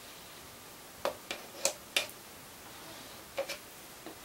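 Plastic squeegee scraping across epoxy-wetted fibreglass cloth, working excess resin off the laminate: about five short, sharp scrapes, four in quick succession and one more a little later.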